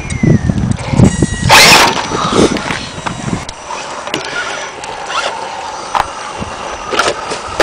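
Electric RC rock crawler working its way up bare rock: drivetrain whirring and tyres scrabbling and knocking on stone. A loud rushing scrape comes about a second and a half in, and the sound grows quieter after about three and a half seconds, leaving scattered clicks.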